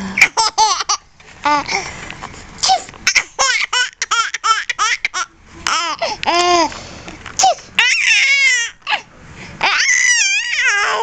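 Baby laughing hard: a string of short, high-pitched giggles and squeals, with longer warbling laughs near the end.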